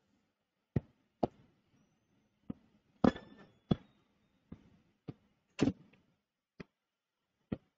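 About ten sharp clicks and taps at uneven intervals against a quiet room, the loudest two about three seconds in and halfway through. The one about three seconds in rings briefly.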